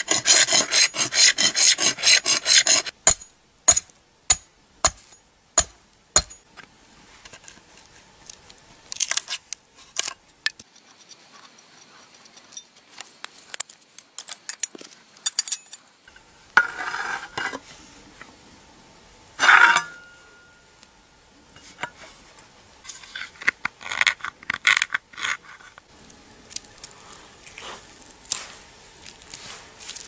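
A metal file rasping a bone knife-handle piece in fast, loud strokes for about three seconds. This is followed by about six single sharp clicks half a second apart, then quieter scattered scraping and clicking, with one louder scrape about two-thirds of the way through.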